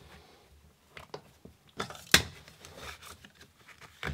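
Plastic shower drain parts being handled and fitted over the drain pipe: light rubbing and scattered clicks, with one sharp knock about two seconds in.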